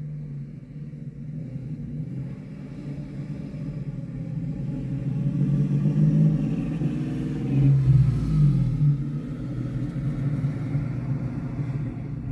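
Low, steady vehicle rumble with a hum that swells about eight seconds in, its pitch bending briefly as it grows loudest, mixed with wind coming through the open car windows.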